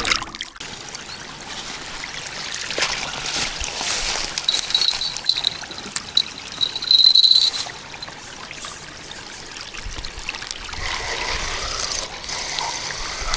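Water trickling and splashing, with a few short high-pitched chirps in the middle.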